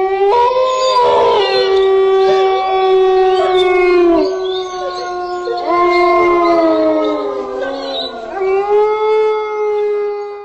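A pack of wolves howling in chorus: several long, overlapping howls at different pitches, one held low howl running under higher voices that rise and fall away, with a fresh howl rising about eight seconds in.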